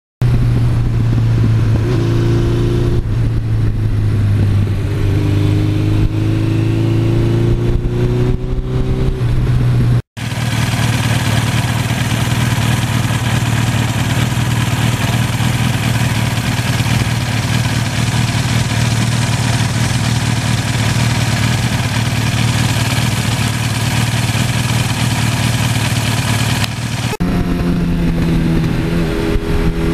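1982 Suzuki GS1100E's air-cooled four-cylinder engine running: at first a steady note with the revs slowly climbing, then after a brief cut a dense, steady running sound, and near the end the pitch rises as the bike accelerates.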